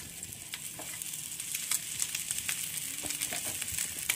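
Marinated, already-boiled chicken pieces sizzling in a little oil in a non-stick pan: a steady high hiss with scattered crackling pops.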